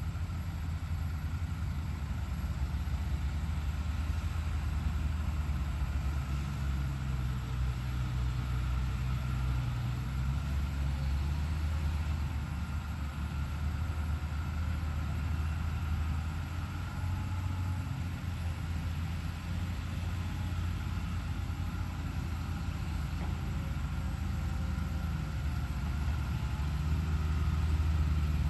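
Hydraulic excavator's diesel engine running steadily while working, its low note shifting slightly as the load changes.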